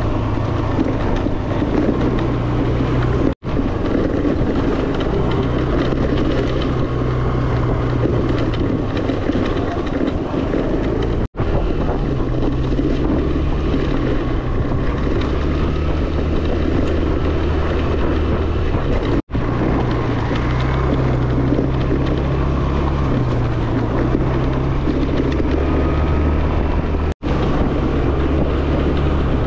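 Yamaha Fascino scooter's single-cylinder engine running steadily under way, with wind rushing over the microphone. The sound cuts out briefly four times, about every eight seconds.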